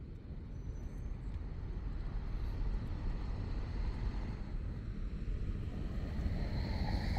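A car driving over wet cobblestones, its tyre noise swelling steadily as it approaches.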